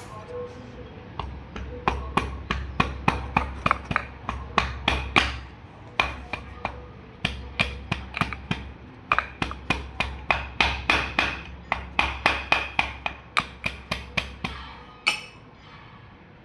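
Repeated hammer blows on metal, about two to three a second, each with a brief ring, in runs broken by short pauses, as a top-load washing machine's gearbox and seal assembly is knocked loose.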